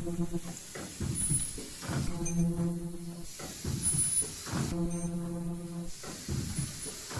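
Ultrasonic welder on an automatic folding-mask machine, firing in bursts of just over a second: a steady hum with a high whine on top. One burst cuts off just after the start, and two more come about two and a half seconds apart, with light machine clatter between.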